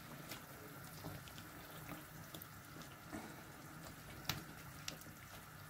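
Spatula stirring watery fish curry in a metal pan: faint liquid sloshing with a few light ticks against the pan, the sharpest a little past four seconds in.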